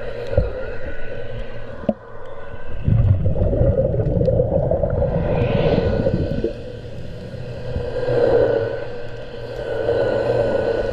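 Remora hull-cleaning machine running underwater with its head working against a boat hull: a steady, slightly wavering motor hum over low rumbling scrubbing noise, swelling louder several times.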